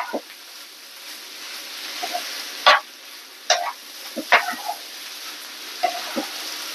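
Food sizzling steadily in a hot pan while it is stirred, with a utensil knocking and scraping against the pan about every second.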